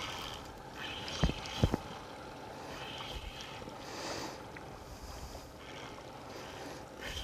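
Quiet outdoor noise of water and wind around a small fishing boat, with hiss that comes and goes, and two sharp knocks about a second in, half a second apart.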